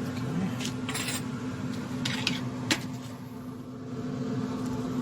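A handful of separate metal clinks and clanks from pans and grill parts being handled, over a steady low hum.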